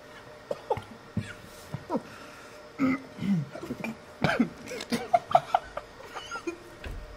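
Short bursts of stifled laughter, chuckles and coughs from people, with no words, coming thickest in the middle of the stretch.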